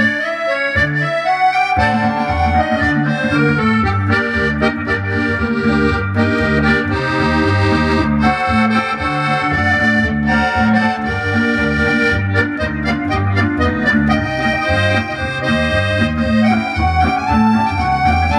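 Piano accordion playing an instrumental tune: a right-hand melody on the keys over a steady, regular bass-and-chord accompaniment from the left-hand buttons.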